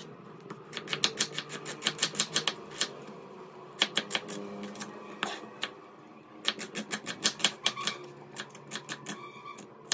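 Kitchen knife chopping a red onion on a wooden cutting board: quick runs of sharp taps of the blade on the board, several a second, broken by short pauses.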